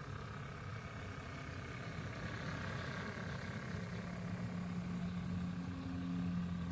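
Model Class 20 diesel locomotive running with its sound-decoder diesel engine note, a steady low hum that grows louder and stronger from about four seconds in.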